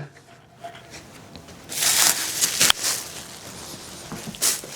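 Photo booth parts being handled and set down: a scuffing noise about two seconds in, a sharp click just after it, and a shorter scuff near the end.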